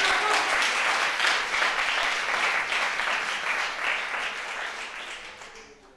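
Audience applauding, a dense crowd of hand claps that dies away over the last two seconds.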